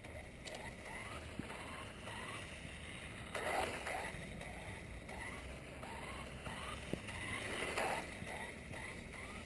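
Turnigy 1/16 electric RC buggy's motor whining in a run of short rising revs, about two a second, as the throttle is blipped. Two louder rushing bursts come about a third of the way in and near the end.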